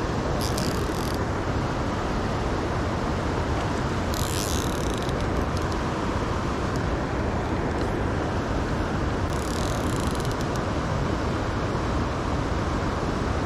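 Shallow river rapids rushing steadily over rocks. Three brief high rasps cut through the water sound: one about half a second in, one around four seconds and a longer one around nine to ten seconds.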